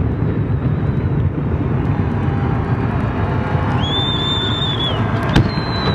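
Fireworks display heard from afar: a steady low rumble, a high whistle held for about a second starting near the four-second mark, and a single sharp bang near the end.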